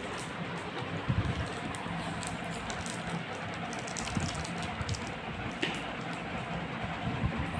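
Plastic chocolate wrapper crinkling in a toddler's hands and mouth, light scattered crackles over a steady background hiss and low hum, with a couple of soft thumps.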